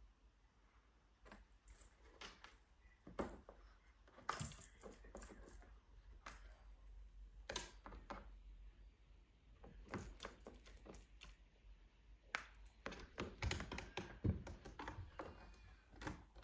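A cat playing on a plush cat tree, batting the pom-pom toy that hangs on a string: irregular bursts of light jingling and clicking, with a few sharper knocks as it moves about and climbs.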